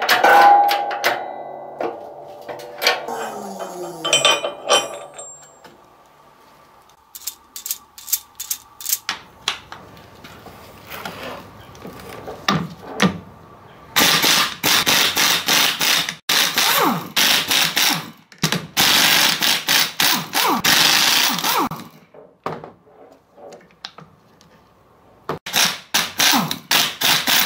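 Impact wrench hammering in several bursts of a couple of seconds each, loosening the ring gear bolts on a Ford 8.8 differential carrier. Before the bursts there are metallic clunks and scattered clicks.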